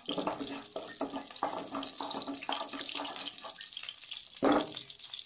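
Hot ghee sizzling and crackling in a kadhai as it heats, with a wooden spatula moving through it; briefly louder about four and a half seconds in.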